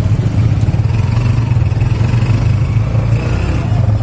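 Motorcycle engine of a tricycle tuk-tuk running steadily with a low drone, heard from on board.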